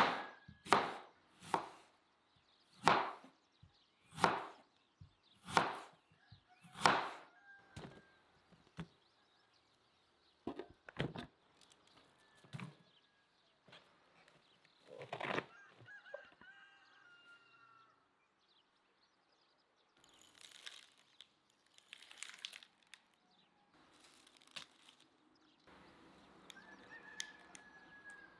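Knife slicing through a beetroot onto a wooden cutting board: about seven crisp, evenly paced cuts in the first eight seconds. After that, softer scattered knocks and rustling as cabbage leaves are packed into a glass jar.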